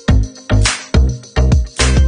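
Background music: an upbeat instrumental track with a steady beat, low thumps about twice a second, a brighter hit about once a second, and a bass line.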